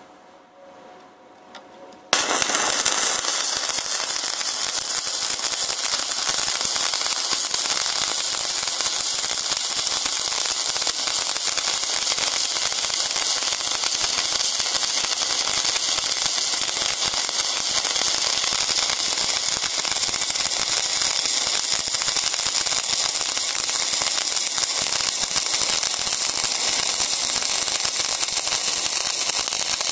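Stick-welding arc of a 3.2 mm SuperTIT Fin rutile (6013) electrode on steel at 125 A: the arc strikes about two seconds in, then burns with a steady crackling hiss.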